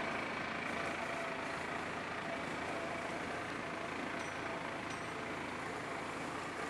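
Farm tractor engine running steadily, with a faint steady whine over it. Two brief high chirps sound about four and five seconds in.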